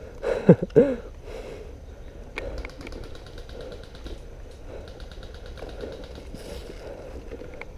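Airsoft electric rifle firing on full auto: a fast, even rattle of clicks from about two and a half seconds in to about six seconds.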